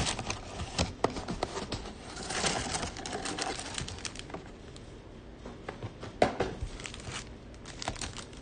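Foil trading-card packs crinkling and rustling as they are pulled out of a cardboard box and handled on a table, with scattered clicks and taps throughout.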